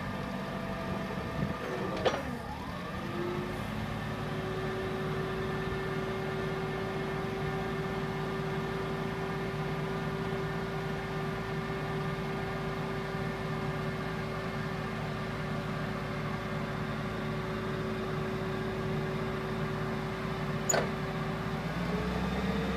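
Yale 6300 lb propane forklift's engine running at a steady speed. About two seconds in there is a sharp clank as the engine speed dips and recovers. Near the end there is another click, and the engine speed rises.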